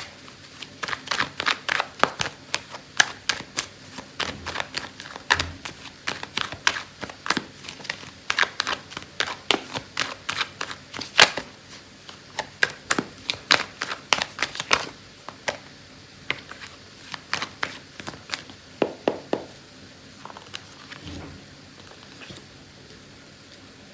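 A tarot deck being shuffled by hand: rapid, quick-fire flicks and ticks of card stock for about fifteen seconds, then only scattered taps as the shuffling slows and stops.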